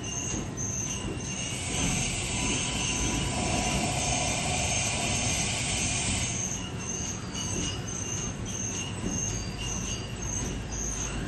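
Amada 4,000-watt CNC fiber laser cutting machine running: short high-pitched squealing tones repeat a few times a second throughout, with a loud hiss from about two seconds in until a little past six seconds, when it cuts off.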